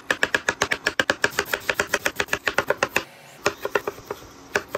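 Chef's knife chopping on a cutting board, first through mushrooms and then a green bell pepper: quick, even knife strikes, about eight a second. There is a short break about three seconds in, then slower strokes.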